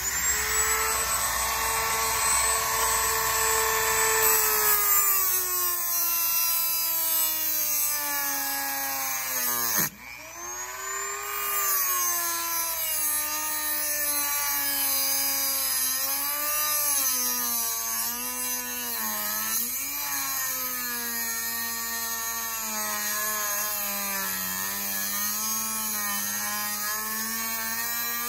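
Dremel rotary tool with a cut-off wheel cutting through an old steel heater-hose clamp: a high motor whine that sags and wavers in pitch as the wheel bites into the metal. About ten seconds in it stops for a moment and spins back up.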